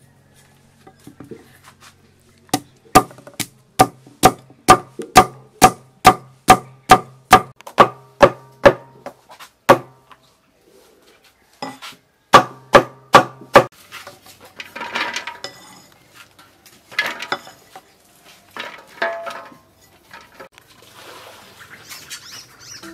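Meat cleaver chopping peeled pumpkin on a wooden block: a steady run of sharp, ringing chops about two and a half a second, a pause, then four more. Softer clatter of handling follows.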